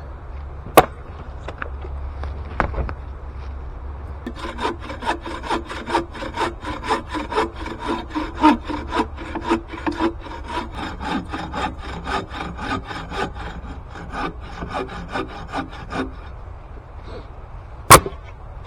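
Hand saw cutting through dense hardwood in quick, even back-and-forth strokes for about twelve seconds. A sharp knock comes about a second in and another near the end.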